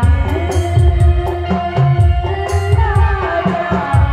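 A woman singing a Hindi film song live through a PA system, holding long, gliding notes over keyboard and a steady drum beat.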